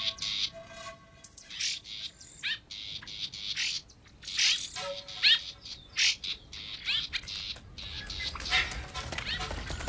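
Bird calls: short high chirps and quick falling squawks, about one a second, with a rushing noise building near the end.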